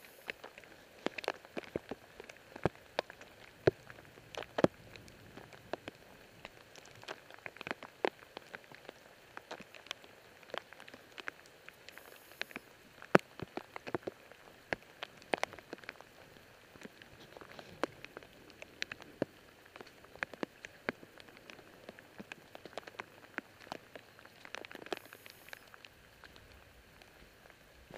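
Rain: irregular sharp raindrop ticks, several a second, over a faint steady hiss.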